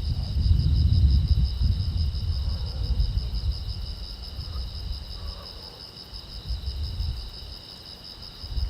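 Crickets chirping in a steady, high-pitched trill, over a low rumble that is strongest in the first second or so, dies away, and returns near the end.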